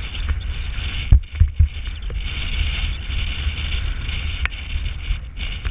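Wind buffeting the camera's microphone, a steady low rumble with a hiss over it. About a second in come three quick heavy thumps of the camera being knocked or handled, and a single click later on.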